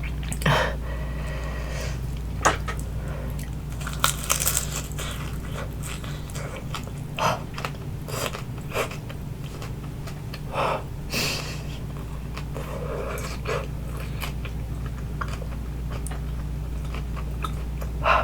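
Close-miked biting and chewing of crispy baked spring rolls: irregular crunches and crackles of the pastry shell, some louder than others. A steady low hum runs underneath.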